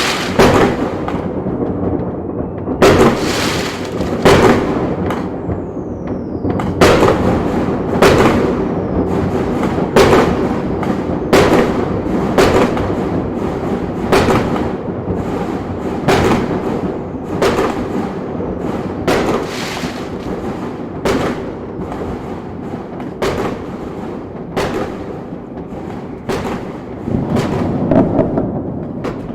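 A fireworks display: sharp bangs come about once every second or so over a continuous rumble and crackle of further bursts. A faint falling whistle sounds about six seconds in.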